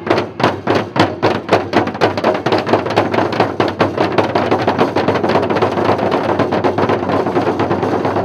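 Drums struck in an even beat, about five strokes a second, quickening after about two seconds into a continuous drum roll.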